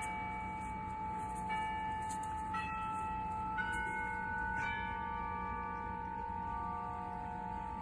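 Doorbell chime playing a slow tune of ringing bell notes: about five notes roughly a second apart, the last left ringing.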